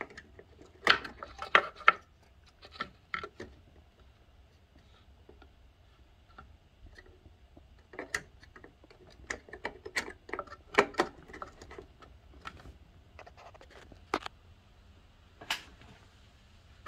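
Circuit cards being pulled out of and pushed into the plug-in card connectors of a Revox A77 reel-to-reel tape deck: scattered clicks, scrapes and knocks, bunched about a second in and again near the middle, with a few single knocks near the end.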